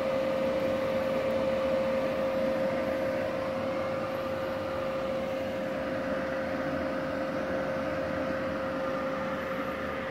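Multipro MIG-MAG 200 G-SP inverter MIG welder switched on and idling, its cooling fan running with a steady hum and one held mid-pitched tone.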